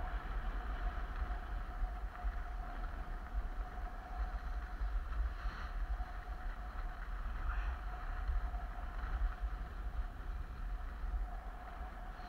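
Wind buffeting the microphone of a camera carried downhill on skis, a steady low rumble, with the hiss of skis sliding over snow.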